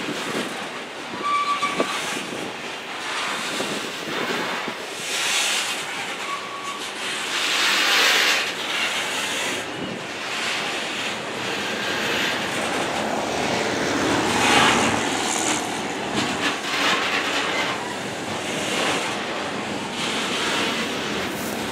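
Freight train of hopper and box cars rolling past, steel wheels rumbling and clattering over the rails with the noise swelling and easing as the cars go by. Brief high-pitched wheel squeals come about a second in and again around six seconds.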